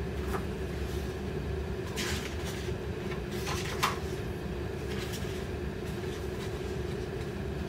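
Pages of a small paperback book being turned, a few short paper rustles over a steady low hum.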